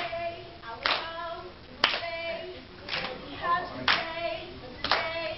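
A group clapping in unison about once a second, steady, with voices singing short phrases between the claps.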